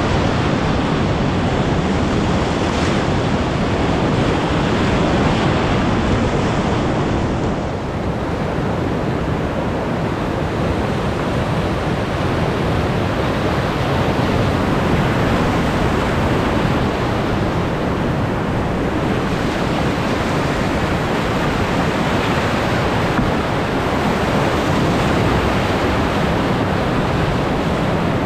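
Whitewater rapids rushing loudly and steadily, heard up close from a raft in the middle of them, with a brief dip in loudness about eight seconds in.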